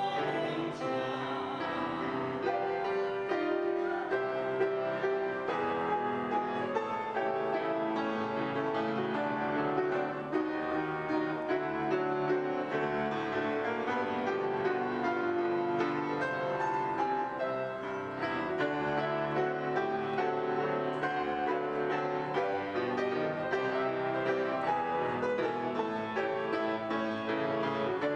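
Live music led by piano, playing continuously.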